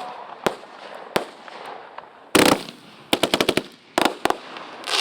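Consumer fireworks going off in sharp bangs. A dense crackle comes about two and a half seconds in, then a quick string of about seven cracks, then two more bangs.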